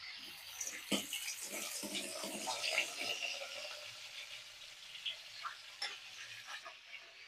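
Minced garlic sizzling in hot oil in an aluminium pot, with a light knock about a second in. The sizzle is strongest over the first three seconds and then dies down.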